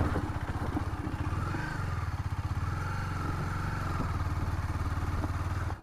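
KTM Duke 250's single-cylinder engine running at low, steady revs.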